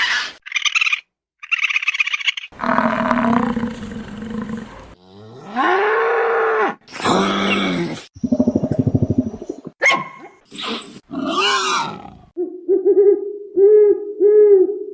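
A run of different animals' calls played one after another, each lasting a second or two. They include a long low rough call, a pitched call that rises and falls, a quick string of low grunt-like pulses, and near the end a series of short, low, evenly spaced pitched notes.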